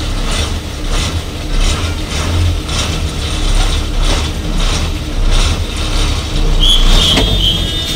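An old bus's engine rumbling low at a standstill, under a regular sharp clicking of about two clicks a second from the cab. A few short high beeps sound near the end.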